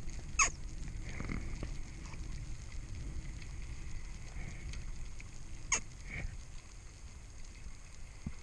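Low underwater rumble with two sharp clicks about five seconds apart, the first the louder.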